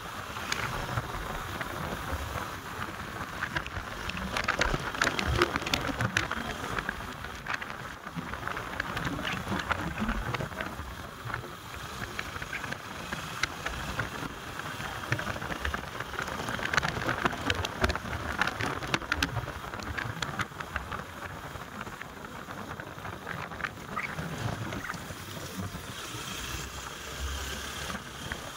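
Motorcycle on the move: engine and road noise with wind on the microphone, and scattered small ticks and clicks.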